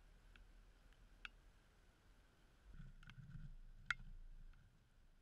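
Faint footsteps on loose shoreline rocks and the rustle of carried dry bags as a person walks past close by, loudest between about three and four and a half seconds in, with a few soft clicks of stone on stone.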